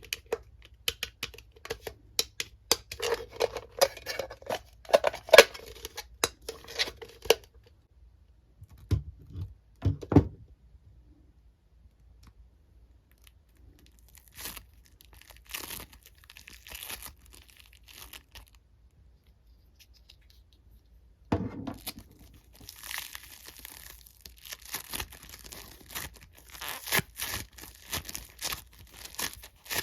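Hands working plastic Mrs. Potato Head parts in and out of a foam squishy toy, giving crackling, tearing and crinkling sounds. There are two soft thumps around nine to ten seconds, a near-quiet stretch in the middle, and the crackling returns for the last several seconds.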